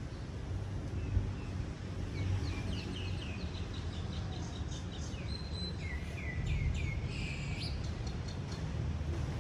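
A bird singing a quick run of short falling chirps, about four a second, for some five seconds, over a steady low rumble.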